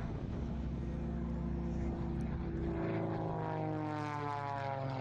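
Single-engine propeller aerobatic plane flying past, its engine and propeller drone sliding down in pitch from about three seconds in as it goes by.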